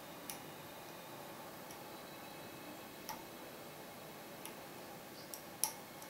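Sparse, sharp metallic clicks of a lock pick and tension tool working inside the keyway of a Dom IX 6KG lock cylinder, about five in all, the loudest near the end, over a faint steady hiss.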